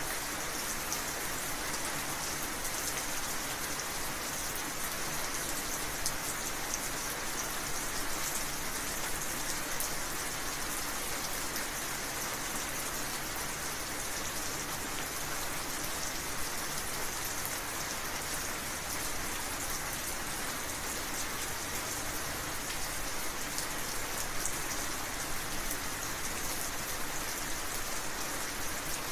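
Steady rain falling, with fine drops pattering on a surface; no thunder is heard.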